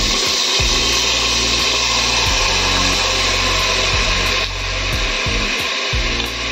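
Washed, drained rice poured into hot ghee in a pressure cooker, sizzling loudly with a dense hiss. The hiss eases about four and a half seconds in, once the rice is all in the pot.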